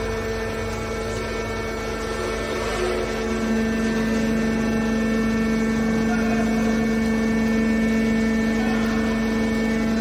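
Hydraulic scrap-metal baler's power pack, an electric motor driving the hydraulic pump, running with a steady pitched hum that grows louder about three and a half seconds in.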